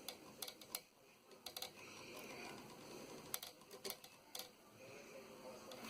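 Light, sharp clicks and taps from handling small tools and the circuit board while soldering, several in quick pairs, the first group near the start and another just past the middle.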